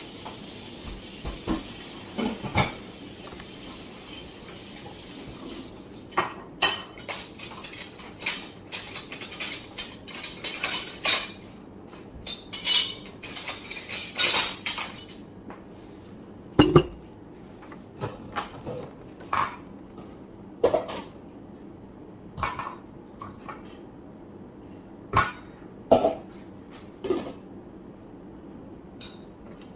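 Dishes and cutlery clinking and clattering as they are handled: a run of sharp, irregular knocks and clinks, thickest from about six seconds in and sparser toward the end.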